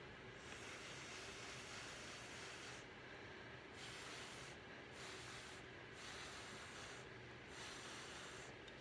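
Breath blown through a drinking straw onto wet acrylic paint: a soft airy hiss in about five puffs, the first about two and a half seconds long, the rest shorter, with short pauses between them for breath.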